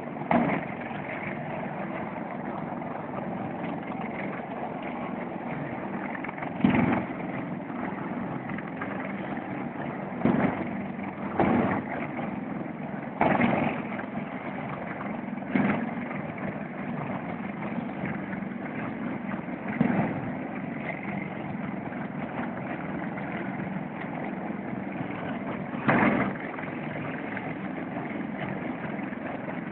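A heavy engine running steadily, a continuous drone broken by a short loud knock every few seconds at irregular intervals.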